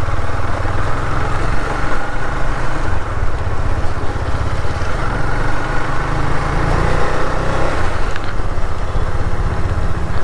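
Motorcycle engine running steadily as the bike rides at low speed and gathers pace.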